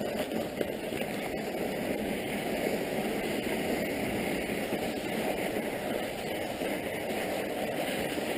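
Mountain bike tyres crunching steadily over snow.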